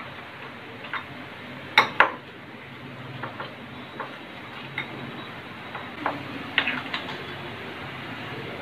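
Metal spoon clinking and scraping against a bowl while mixing keto atta dough: irregular clicks, the loudest a close pair about two seconds in, with a faint steady hum underneath.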